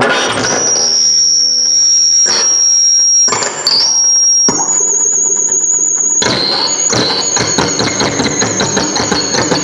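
Harsh noise music from electronics: dense loud noise with piercing high whistling tones over it, switching abruptly between textures several times, with lower droning tones and a wavering high tone in the quieter stretches.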